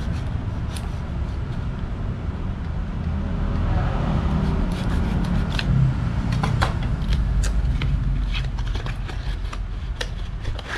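Retail cardboard box and plastic packaging of an external hard drive being opened and handled, giving a scatter of sharp clicks and scrapes, thickest in the second half, over a steady low hum.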